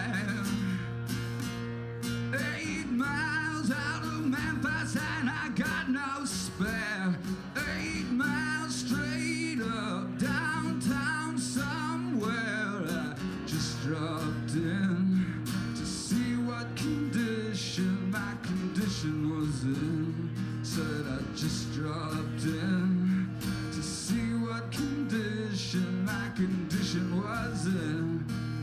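Music: a song with guitar.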